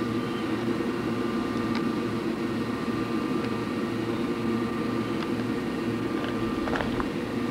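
Steady mechanical hum with a few faint steady tones and occasional light ticks.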